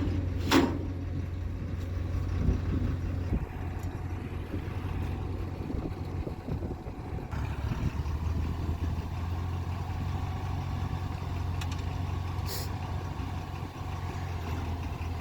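Engine idling steadily, with a brief hiss about twelve seconds in.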